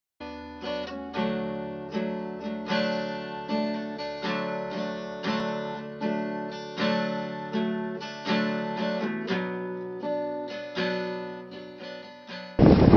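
Intro music: an acoustic guitar strumming chords in a steady rhythm, each strum ringing out and fading. Near the end it cuts off abruptly into a loud rush of noise.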